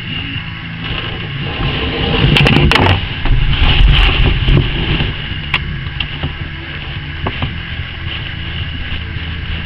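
Handling noise, scraping and sharp clicks of a screwdriver working screws into a pump's pressure switch housing, loudest for a few seconds about two seconds in, over a steady low hum.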